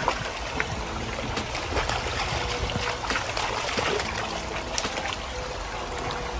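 Shallow, rocky stream babbling steadily, with small splashes as a Rottweiler wades through it.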